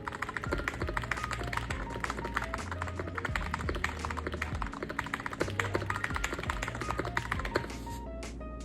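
Fast, continuous typing on an Akko 5075S mechanical keyboard fitted with Akko V3 Cream Black linear switches and MOA-profile keycaps, a dense run of keystroke clicks that thins out near the end. Background music with a bass line plays under it.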